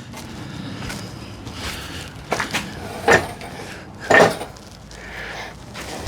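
Several metal clanks and knocks, the loudest about three and four seconds in, over a low scraping rumble, as a heavy electric motor assembly is worked against the transmission to bring it into alignment.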